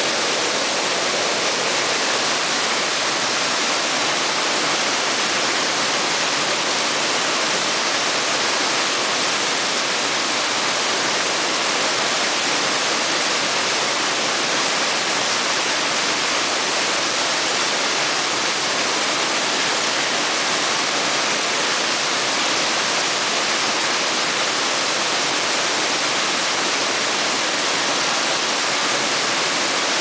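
Waterfall on the Chagrin River pouring steadily. Its rush of falling water is an even, unbroken hiss, mostly high with little deep rumble.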